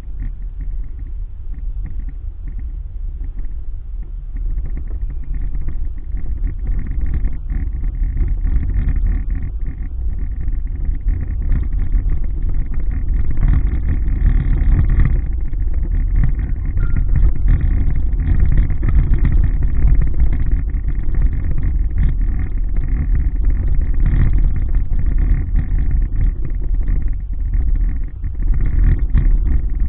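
Car driving along a rough village lane, heard from inside the cabin: a steady low rumble of engine and tyres that grows louder over the first half.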